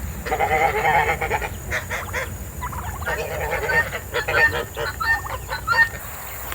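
Guinea fowl screaming: a wavering call in the first second, then a long run of short, harsh repeated calls. It is the call of a bird left alone, far from its flock.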